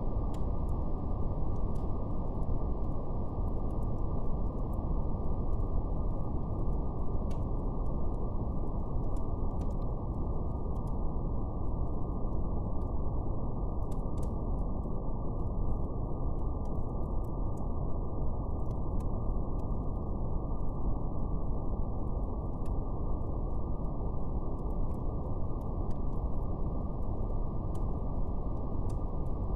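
Steady brown noise, deep and even, with faint scattered crackles of a fire.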